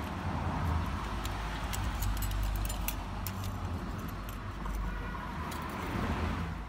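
Screwdriver scraping and clicking against the metal of a scooter's centrifugal clutch assembly, picking out packed dust and dirt from the clutch shoe pivot points, over a steady low rumble.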